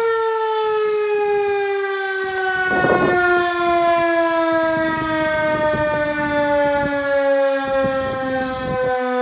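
Outdoor civil-defense warning siren sounding loudly. Its two tones slide slowly and steadily lower in pitch throughout as it winds down, with wind buffeting the microphone.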